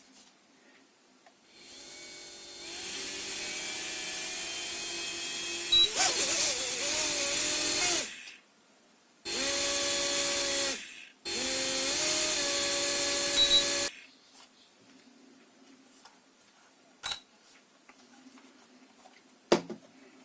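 A small electric motor runs with a steady whine in three runs: a long one that gets louder partway through, then two shorter ones with brief stops between. A couple of sharp clicks follow near the end.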